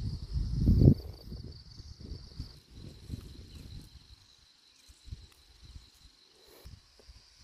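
Insects chirring in a steady high drone. A low rumbling noise, loudest in the first second, dies down to a faint rumble.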